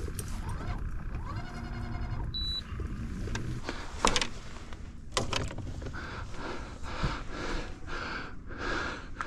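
Knocks and rubbing from rod and gear being handled on a fishing boat while a hooked fish is fought. A short high beep comes about two and a half seconds in, and a run of evenly repeating pulses fills the last few seconds.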